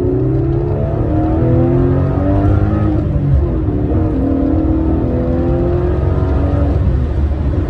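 2005 Aston Martin Vanquish S's 5.9-litre V12 accelerating hard, heard from inside the cabin: the revs climb and drop back at each upshift of its paddle-shifted gearbox.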